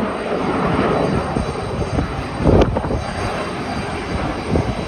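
Jet aircraft engines running as steady engine noise, with a short knock about two and a half seconds in.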